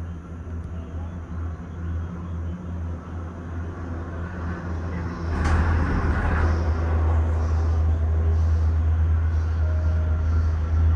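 Steady low rumble of a Disney Skyliner gondola cabin in motion, heard from inside the cabin. It grows louder about halfway through, with a brief rushing surge.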